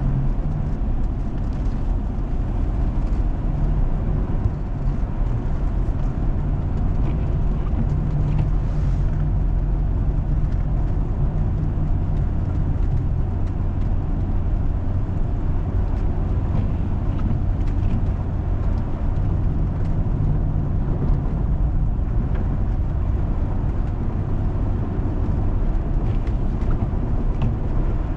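Four-wheel-drive vehicle driving steadily on a snow-covered road: a constant low engine drone with tyre and road noise.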